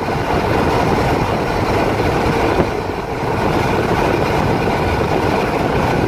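Steady engine and road noise heard inside the cab of a moving truck.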